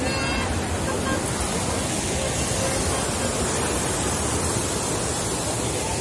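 Steady rush of a swollen, muddy stream flowing fast, with faint distant voices.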